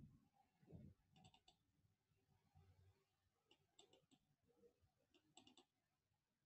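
Faint computer mouse clicks in three quick little groups, over near silence.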